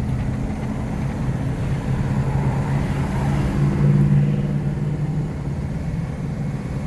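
International box truck's engine running under load as the truck accelerates, heard from the cab; its note rises and is loudest about four seconds in, then eases back. The owner reports it misfires above 1500 rpm.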